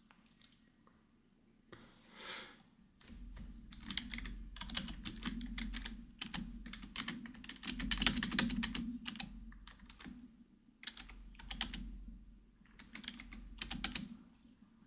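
Computer keyboard typing in quick runs of key clicks, broken by short pauses.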